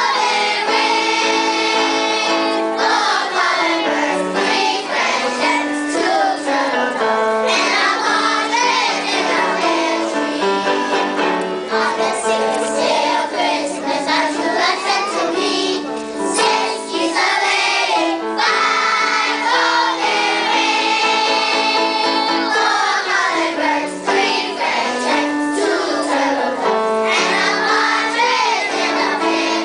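A choir of young children singing a song together, with held notes and no pauses.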